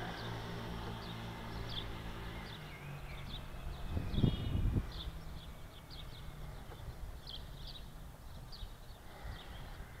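Small songbirds chirping again and again, with a short trill about three and a half seconds in, over a low steady hum. Loud low rumbles of wind on the microphone about four seconds in.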